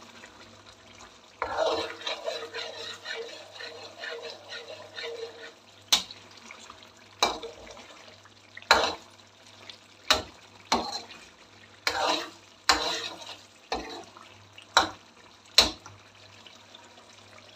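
Chicken masala frying in ghee in a metal karahi, stirred with a metal ladle. It sizzles for the first few seconds, then comes about ten sharp clanks of the ladle knocking and scraping against the pan, roughly a second apart. This is the bhuna stage, frying the masala in ghee.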